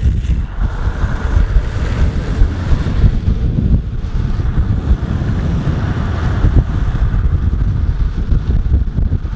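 Heavy wind buffeting the microphone at downhill speed, over the steady rolling rumble of longboard wheels on asphalt.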